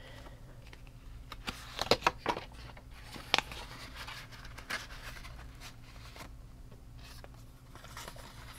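Paper money and paper envelopes being handled: a few brief rustles and scrapes as banknotes are slid into a cash envelope, the loudest about two seconds in and again a little later. A low steady hum runs underneath.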